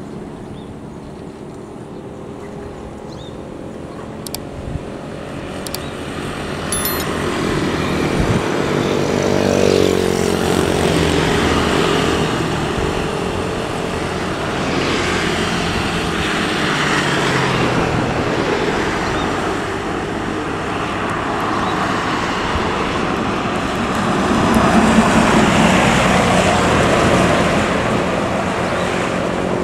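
A diesel coach bus approaches and drives past, its engine and tyre noise building until it is loudest about ten seconds in. Motorcycles and other road traffic pass as well, with a second loud spell about 25 seconds in.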